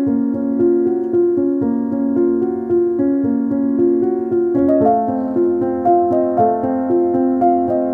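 Piano music played as a steady flow of notes, moving to a higher chord about halfway through.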